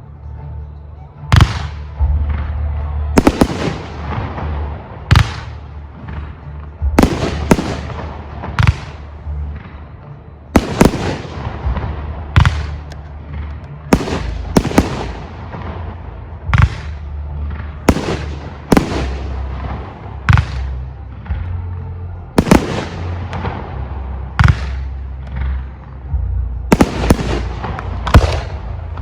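Aerial firework shells bursting in a large display, loud bangs roughly every one to two seconds, sometimes two or three in quick succession, each trailing off in a long echoing rumble. A steady low rumble runs underneath.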